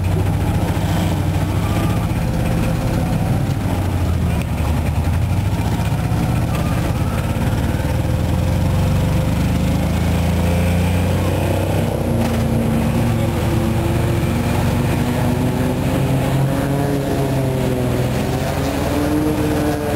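Small engine of a tuk-tuk running steadily as it drives along, heard from inside its open cab.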